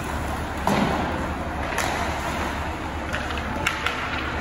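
Ice hockey play: a steady hiss of skates and rink noise with several sharp clacks of sticks and puck, and a heavier thud under a second in.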